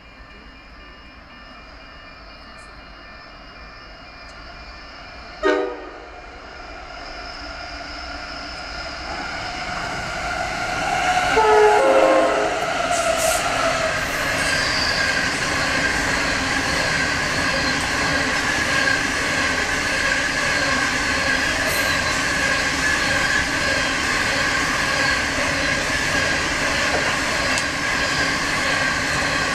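Approaching diesel freight train sounding its horn: one short blast about five and a half seconds in, then a longer one about twelve seconds in as it arrives. After that comes the steady rumble and wheel noise of its hopper wagons rolling past, louder than the approach.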